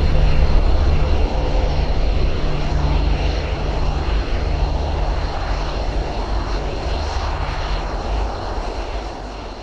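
F-35A Lightning II jet fighter's single afterburning turbofan engine: a loud, deep rumbling jet roar that fades away steadily.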